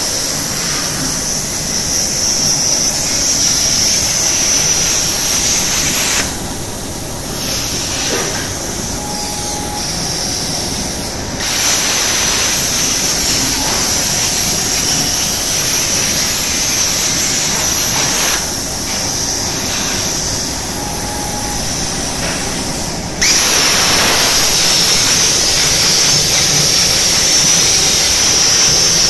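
Hypertherm plasma cutter's torch arc hissing loudly while cutting, stopping twice for a few seconds between cuts and striking up again suddenly about 23 seconds in. Between cuts a quieter hiss continues, with a brief faint hum.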